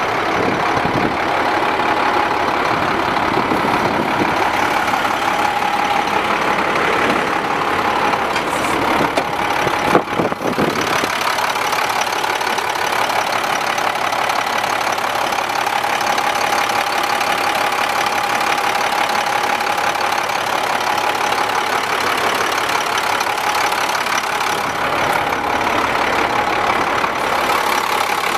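International 4700 dump truck's diesel engine idling steadily, with a steady whine running over it. A brief loud thump about ten seconds in.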